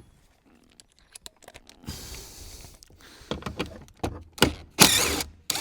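Hand tools clicking and rattling against metal as the T40 Torx bolt holding the rear seatbelt mechanism is undone: scattered light clicks at first, then louder irregular rattles and scrapes from about three seconds in.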